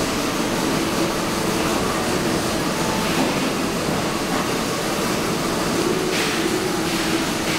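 Steady drone of running factory machinery, with a constant low hum throughout.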